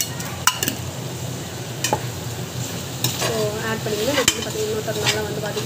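A perforated metal skimmer stirring onions and mushrooms that sizzle in hot oil in a metal pot, with the sharp clink of the spoon striking the pot several times.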